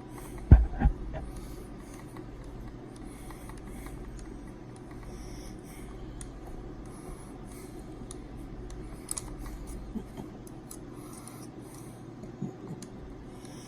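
Two heavy thumps about half a second in, then faint clicks and light scraping from small hand tools and the RC car's plastic wing parts being handled while screws are driven in.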